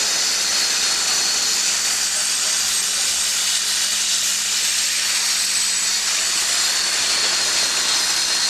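Steam locomotive 3265 "Hunter" venting steam in a loud, steady hiss.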